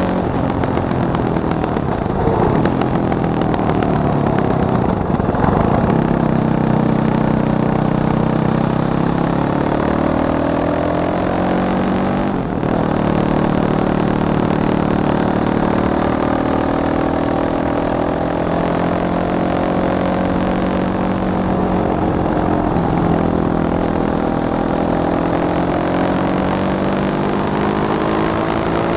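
Fantic Caballero 500 Flat Track motorcycle's single-cylinder engine running, its revs climbing and falling in long sweeps, with a brief dip about twelve seconds in.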